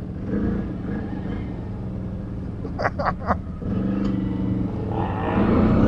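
Quad (ATV) engine running under way, with three short sharp sounds about halfway through. The engine then picks up and is loudest near the end.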